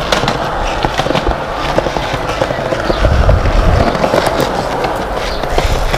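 Skateboard wheels rolling over concrete, with sharp clacks of boards hitting the ground and a heavier low rumble of rolling about three seconds in.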